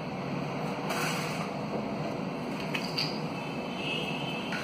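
Faint clicks and rustles of clear plastic packaging being handled, over a steady background hiss.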